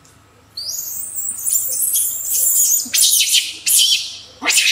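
Young macaques screaming: one long shrill scream starting about half a second in, then a run of shorter shrill squeals.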